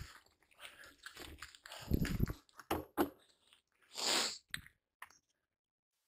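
Irregular crunching and knocking of cyclocross bikes rolling over dry grass and rough dirt, with a short hiss about four seconds in; the sound cuts off a little after five seconds.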